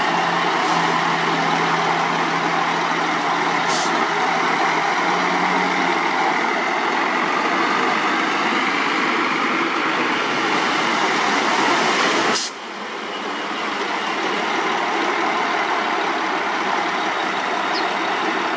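Diesel dump trucks running as their tipper beds are raised and loads of earth and rock slide out, a dense steady noise. The sound drops abruptly about twelve seconds in.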